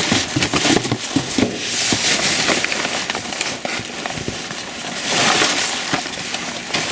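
Rummaging through a dumpster: trash rustling and crinkling in uneven swells, with scattered clicks and knocks of items being shifted.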